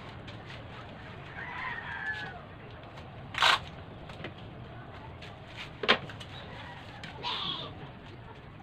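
Packing tape pulled off the roll in two short, sharp rips, the first about three and a half seconds in and the second about two and a half seconds later, as plant parcels are taped up. Chickens call in the background, with a rooster crowing.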